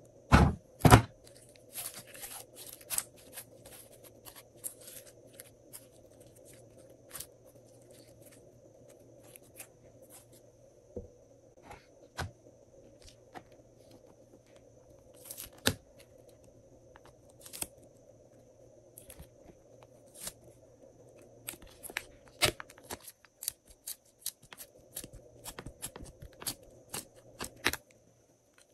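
Hands working glossy slime, with scattered sticky clicks and pops as it is pressed and pulled, two loud ones about a second in, over a faint steady hum.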